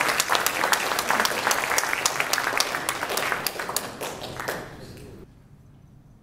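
An audience applauding: many people clapping at once. The clapping thins out about four and a half seconds in and dies away about a second later.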